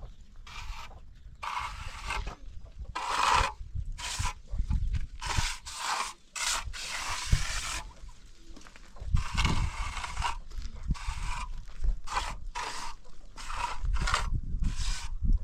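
A string of irregular scraping or rasping strokes, each lasting about half a second to a second, over a low rumble.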